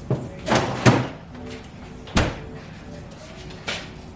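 Groceries knocking as they are handled, then a refrigerator door shutting with a single thud just after two seconds in, and a lighter knock near the end.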